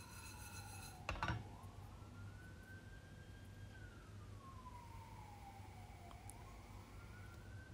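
A siren wailing faintly, its pitch slowly rising and falling in long sweeps. About a second in there is a short clatter of knocks.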